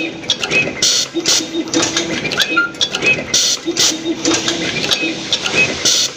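Automatic wire tinning and terminal crimping machine cycling: clicking and clattering of its mechanisms, with a short hiss of air about every two and a half seconds, three times, over a low steady hum.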